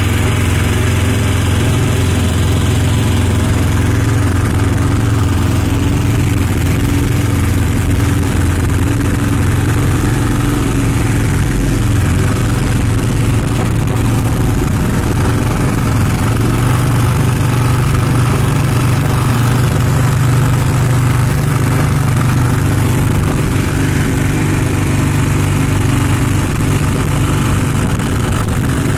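Small motor of a katinting outrigger boat running steadily under way, a constant drone that holds the same pitch throughout.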